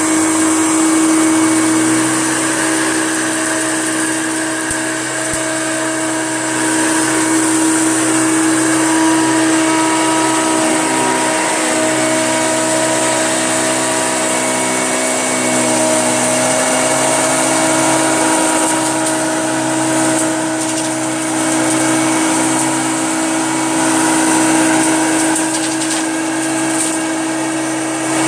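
Hoover Junior upright vacuum cleaner running steadily on carpet, its motor holding an even whine over a rush of air.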